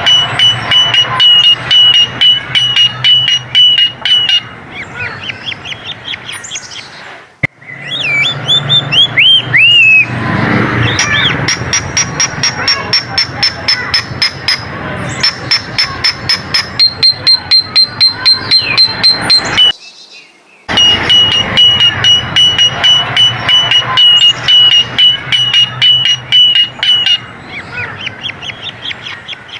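Coleto calls: rapid trains of clicking notes over a held high whistle, mixed with rising and falling whistled notes. The sequence cuts off abruptly twice and resumes, as in a looped recording.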